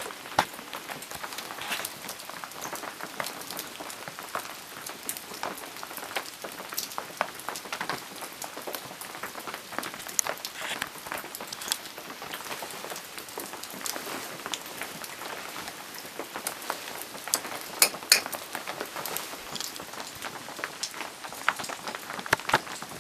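Steady rain falling, with many irregular drops hitting sharply over the hiss and a few louder ones about eighteen seconds in.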